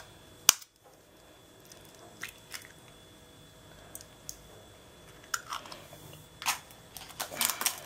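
An egg cracked with one sharp knock against a knife blade about half a second in, followed by scattered light clicks and taps of the shell being pulled apart and set down over a glass bowl.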